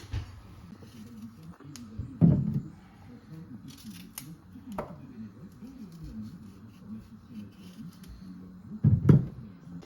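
Faint background voices with scattered sharp clicks, and two louder low knocks, one about two seconds in and one near the end.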